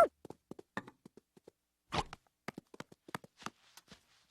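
Cartoon footstep sound effect: a run of light, irregular taps, with one louder tap about two seconds in.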